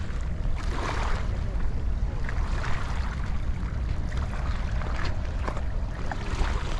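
Small waves lapping and washing softly over a pebble shore every second or two, over a steady low rumble of wind on the microphone.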